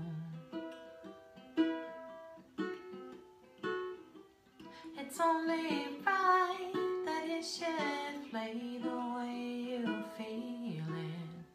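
Ukulele strummed in slow chords about once a second, each left to ring. About five seconds in, a woman's singing voice comes in over it and carries on to near the end.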